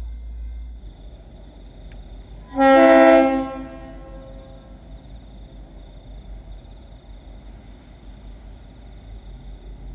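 Train horn sounding one blast of about a second, a multi-note chord, a bit over two seconds in.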